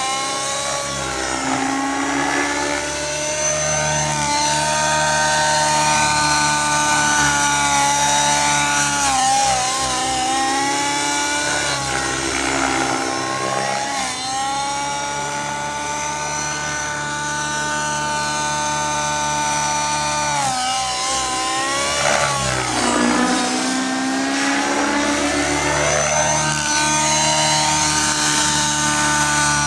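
Align T-Rex 700N nitro radio-controlled helicopter in flight: its two-stroke glow engine and rotor run with a steady high whine. The pitch sags and recovers twice, about halfway through and again about three quarters of the way in, as the helicopter is thrown about and passes by.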